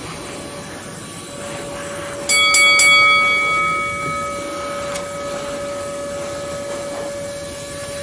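Parkside PWD 12 B1 wet/dry vacuum running steadily as it sucks up debris. About two seconds in, small stones clatter through the hose in three quick knocks, leaving a ringing tone that fades over a couple of seconds.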